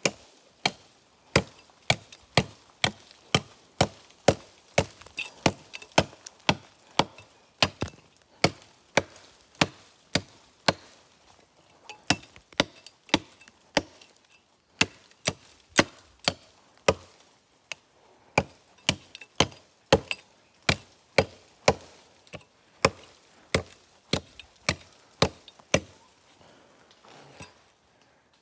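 A blade chopping into wood in a long run of sharp strokes, about two a second, with a few brief pauses. The strokes stop a couple of seconds before the end.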